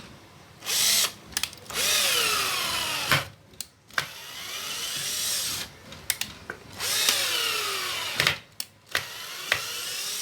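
Hitachi cordless drill run in repeated short bursts on the trigger, about five times. The motor whirs up, then winds down with a falling whine after each release, and sharp clicks come between the runs.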